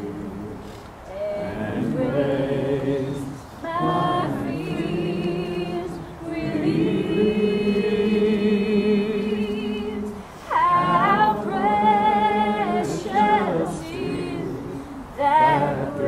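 Background music: a slow song carried by singing voices, with long held notes sung with vibrato.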